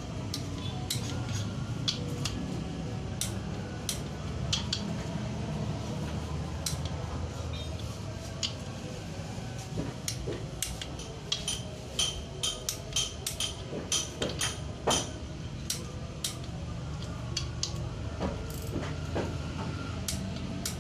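Metal clicks and clinks of hand tools and engine parts being handled during engine assembly, scattered throughout, with a quicker run of clicks about midway, over a steady low hum.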